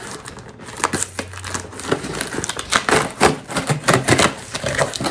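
Cardboard toy box and its packaging being opened by hand: an irregular run of crackles, clicks and rustles, busier in the second half.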